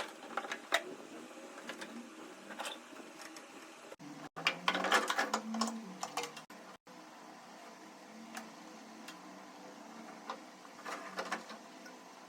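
Scattered clicks and clatter of hand tools and metal parts being handled while a window air conditioner is taken apart to replace its fan motor. There is a denser burst of rattling near the middle and a few more clicks near the end.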